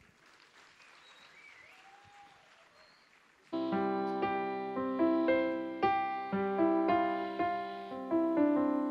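Near silence for about three and a half seconds. Then a piano-sounding keyboard starts playing, striking chords in a steady pulse of about two a second.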